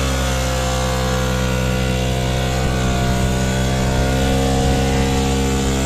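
An engine running steadily at an even speed, its pitch holding constant.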